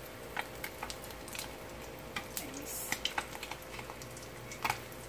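Flour-coated tawilis (small freshwater sardines) frying in shallow oil in a steel wok, with a faint steady sizzle and scattered light crackles as a metal spatula moves them. One sharper click comes near the end.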